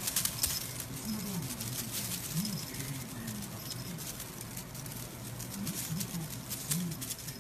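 Crinkly tinsel on a cat's wand toy rustling and crackling as a kitten bats at it, with the small bell on its collar jingling now and then. A low, rising-and-falling coo repeats steadily underneath.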